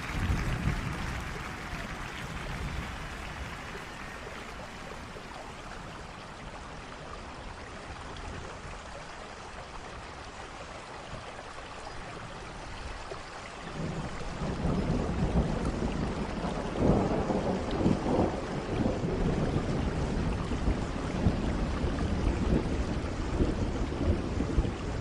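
Steady rain with rolling thunder. The thunder rumble comes in a little past halfway and grows louder and uneven.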